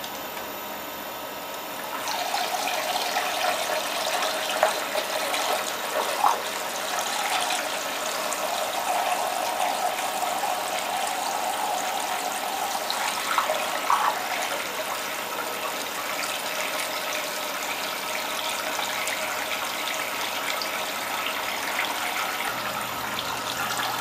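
Chilled water from a radiator's return hose pouring and splashing into an ice-water tank. It gets louder about two seconds in, then runs steadily.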